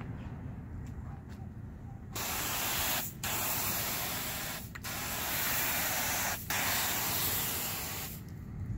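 Hissing jet of a low-pressure softwash spray hitting a stucco wall. It starts about two seconds in, breaks off briefly three times and stops shortly before the end, over a low background rumble.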